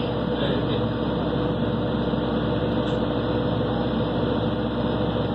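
Steady running noise of a train heard from inside the carriage, with an even hum throughout.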